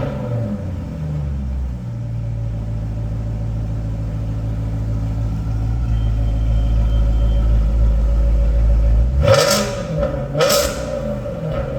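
Maserati Ghibli engine idling through an exhaust with its rear silencer boxes gutted and resonator deleted, giving a deep, steady drone. Near the end the throttle is blipped twice in quick succession, each rev rising and falling sharply.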